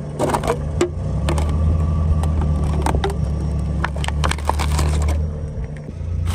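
Car engine running low and steady while the car's tyre rolls over and crushes brittle objects, with a string of sharp cracks and snaps that thin out near the end.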